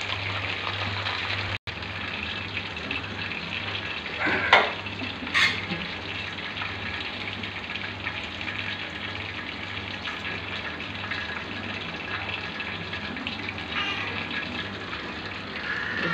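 Chicken pieces deep-frying in hot oil, a steady sizzle, with a couple of sharp metal knocks from tongs in the pot about four and a half and five and a half seconds in.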